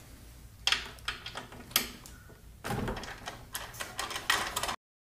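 Irregular knocks, clicks and rattles of hands and tools working on a Briggs & Stratton L-head mower engine's top cover and recoil starter, denser in the second half, cut off abruptly near the end.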